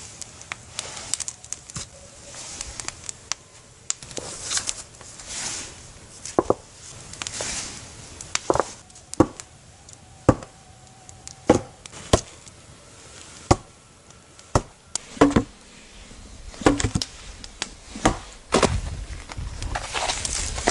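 Wood being chopped: sharp, irregular blows, roughly one a second.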